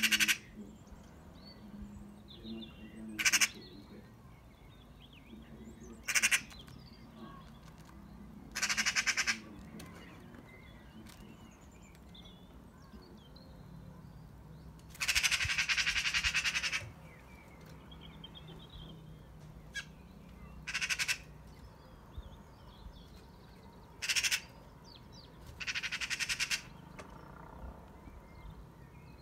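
Eurasian magpie giving its rattling chatter call in about eight bursts, some short and some a second or two long, the alarm chatter magpies use when mobbing a cat. Faint chirps from smaller birds between the bursts.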